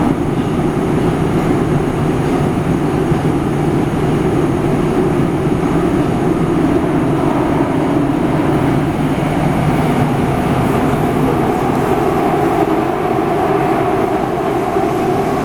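Nagoya Municipal Subway 2000-series train running, a loud, steady rumble of the moving car.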